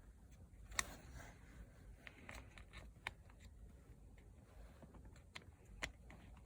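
Faint handling noise and a few light, sharp clicks of small plastic parts as a 2010 Hyundai Santa Fe seat belt buckle and its micro switch are worked back into place. The sharpest click comes about a second in.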